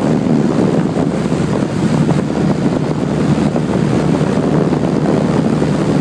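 Bryant central air conditioner's condenser fan blowing its discharge air straight onto the microphone: a loud, steady rushing wind noise that covers the unit's own running hum.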